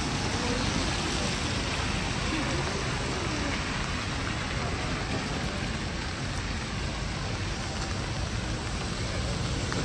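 Steady rain hiss. Faint voices are heard in the first few seconds.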